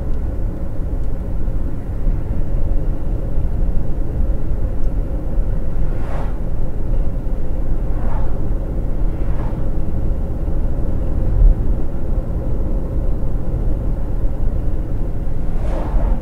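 Steady low road and engine rumble inside a car's cabin cruising at about 50 mph. A few times it is broken by the brief whoosh of an oncoming vehicle passing.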